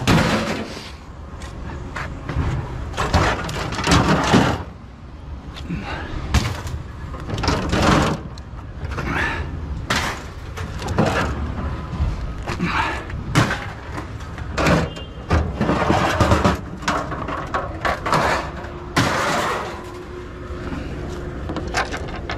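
Scrap metal being handled and thrown down: a long, irregular string of clanks and bangs, many of them ringing.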